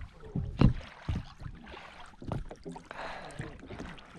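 Scattered knocks and bumps on a small boat, with wind and water noise and a brief hiss about three seconds in.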